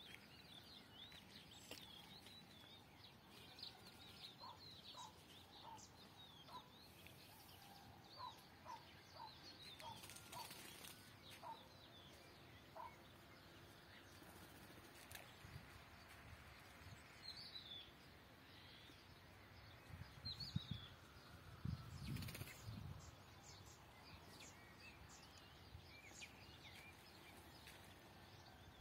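Faint outdoor birdsong: many small birds chirping and twittering, with a run of short repeated call notes between about 8 and 13 seconds in. A few low thumps and rumbles come about two-thirds of the way through and are the loudest moments.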